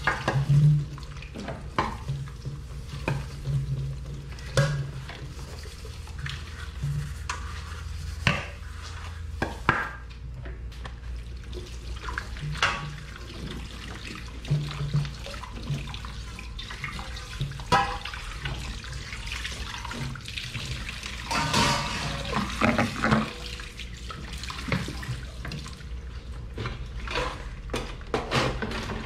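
Dishes being washed by hand at a kitchen sink: running tap water with frequent clinks and knocks of dishes and utensils.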